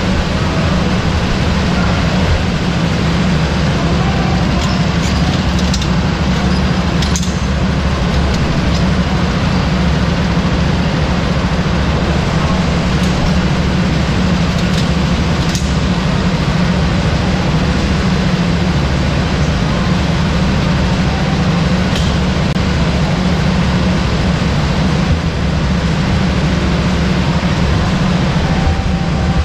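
Go-kart engine running steadily and loudly without a break, with a few faint clicks.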